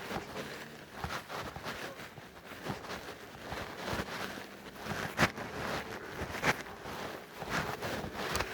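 Footsteps on a woodland trail: irregular crackling steps and rustling, with a few sharper snaps about five and six and a half seconds in.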